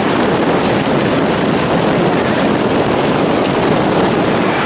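Strong wind rushing and buffeting against the microphone in a steady, loud, noisy roar, the kind of gale that sends a tower crane's jib freely slewing round.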